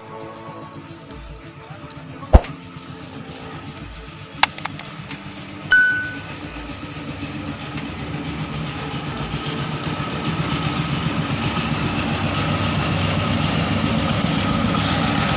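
A motor vehicle's engine running, growing louder over the second half, with a few sharp clicks and knocks before it and background music.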